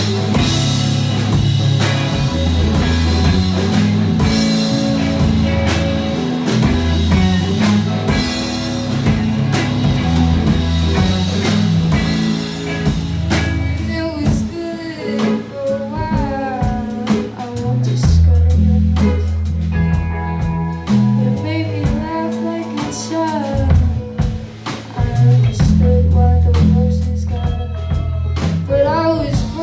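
Live band playing an instrumental passage on electric guitars, drum kit, bass and keyboard. The full, dense playing thins out about halfway through into a sparser section over a heavy bass line, with a sliding, bending melodic line on top.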